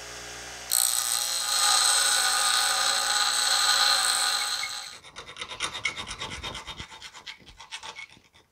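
Bench grinder running, and from about a second in the cut end of a steel shift lever is ground against the wheel for about four seconds. Then a hand file rasps across the metal edge in quick strokes.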